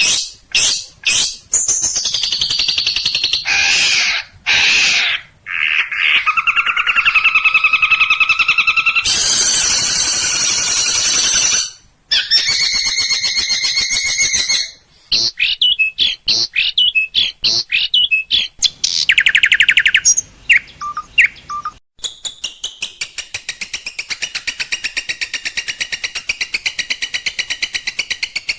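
Long-tailed shrike song, full of varied phrases: sharp chips, buzzy and rasping runs, and a harsh scratchy burst near the middle. Over the last six seconds it settles into a fast, even trill of repeated notes.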